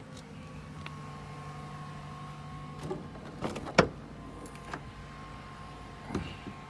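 A few sharp knocks and clicks of things being handled and set down, the loudest about four seconds in, over a steady low hum.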